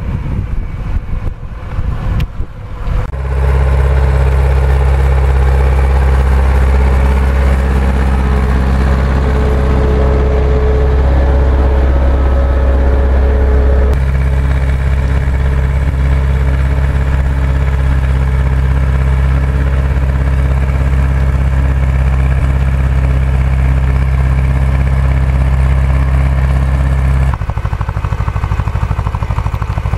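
Tractor diesel engines working under load in the field. First a Vladimir T-25 pulling a harrow, with wind on the microphone. About 3 s in comes a loud, steady engine drone, which changes abruptly at about 14 s and again near the end as the sound switches between tractors.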